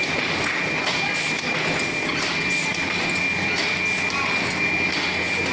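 Automatic screen printing line with IR dryer running: steady mechanical noise with a constant high-pitched whine and light, irregular clacks from the press.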